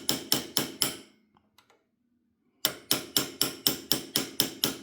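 Hammer tapping a punch to drive a pin back into a Vudoo Gen 1 rifle bolt: two quick runs of sharp metallic taps, about five a second, separated by a pause of over a second.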